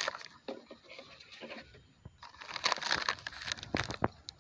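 Plastic crinkling and rustling as litter and a plastic bag are handled, in uneven bursts with a short lull about two seconds in and a few sharp clicks near the end.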